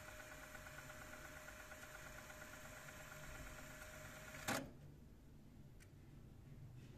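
Akai GX-7 direct-drive, closed-loop dual-capstan cassette deck transport running with a faint steady whir. A sharp mechanical click comes about four and a half seconds in, and the whir stops after it.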